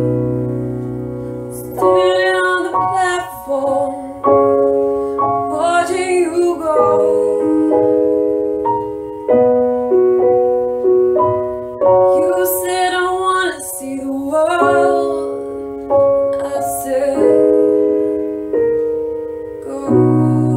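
A woman singing a slow piano ballad. Held piano chords change every second or so, and short sung phrases come in over them. It opens and ends on a held chord without voice.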